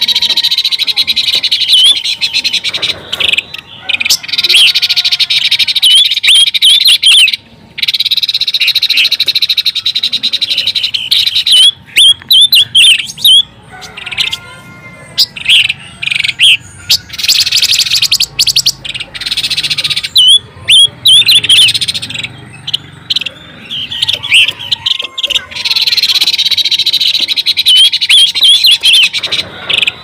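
Pancawarna bird calling: runs of high, quick chirps and trills that break off and resume every few seconds, as used for bird-trapping lure recordings. Softer, lower calls come in a few times.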